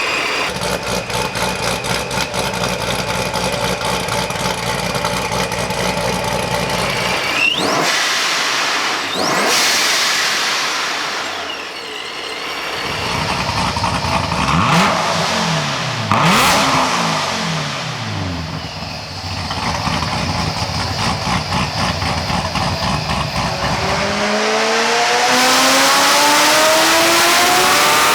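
ProCharger-supercharged C7 Corvette Z06 V8 running and revving, its pitch rising and falling several times through the middle, then climbing steadily in one long pull near the end as it accelerates.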